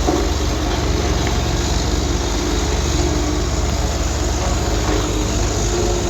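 Diesel engine of a vibratory road roller running steadily while compacting the gravel road base, a low even hum with fine rapid pulsing.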